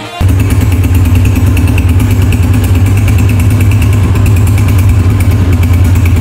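Honda CG125's single-cylinder four-stroke engine idling steadily through a newly fitted aftermarket chrome silencer, with an even, rapid exhaust beat. It starts suddenly a moment in, as music cuts off.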